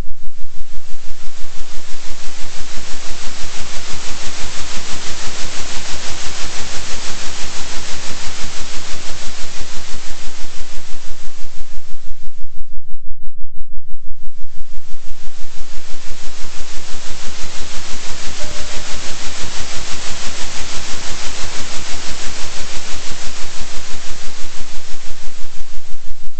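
Synthetic noise track, a loud hiss over a steady low hum, pulsing rapidly in level, which the title gives as a 3 Hz oscillation. The hiss fades out briefly about halfway through and swells back in.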